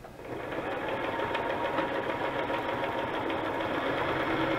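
Sewing machine starting up and running steadily, stitching lace on with a zigzag stitch.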